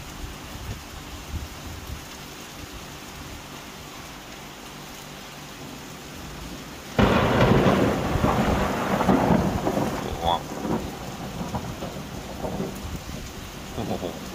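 Steady rain falling, then about seven seconds in a very close thunderclap breaks suddenly and rumbles on unevenly for several seconds, fading. The flash and the sound came right after each other: the lightning struck really close by.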